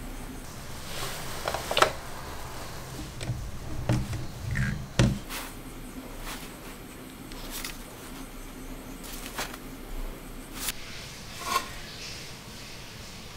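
Handling sounds of a small wooden jig, a cordless drill and wooden strips: scattered clicks and light knocks of wood and metal, the sharpest about two and five seconds in.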